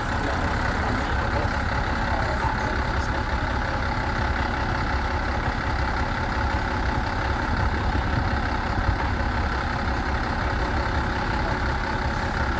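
A heavy engine running steadily with an even rumble, in keeping with road-construction machinery at work.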